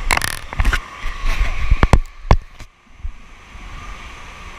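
A quick run of knocks and rubbing from a handheld camera being jostled, the sharpest knock about two and a third seconds in, over a steady rush of running water.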